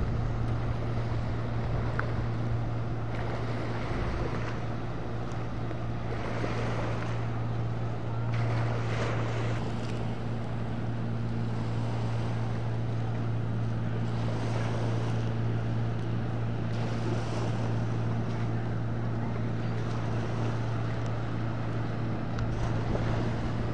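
Rigid-hull inflatable boat running at speed, its engine a steady low drone over the rushing of the hull and wake through the water, with some wind on the microphone.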